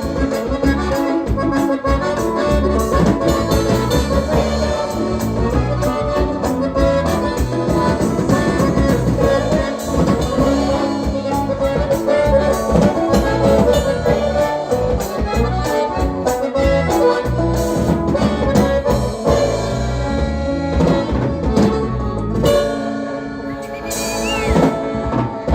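Live band playing an instrumental passage between sung verses, with drums keeping a steady beat; the music thins out near the end.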